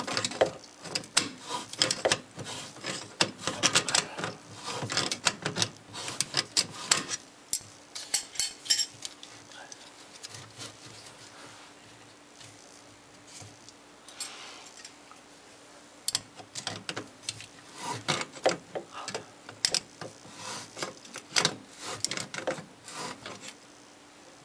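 Hands turning and working the chrome metal drain tailpiece and slip nuts under a sink: irregular metal clicks, taps and scraping of the parts. The sounds come in two spells, with a quieter stretch in the middle.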